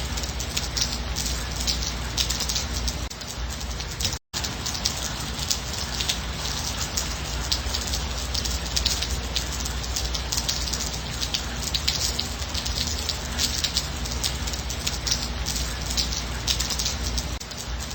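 Steady light rain falling, a dense patter of drops hitting a surface. It cuts out to silence for an instant about four seconds in.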